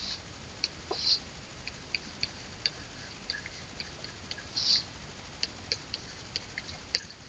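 Plastic stylus tip tapping and scratching on a writing surface during handwriting: a string of small, irregular clicks, with short scratchy strokes at the start, about a second in, and just before five seconds, over a faint steady hiss.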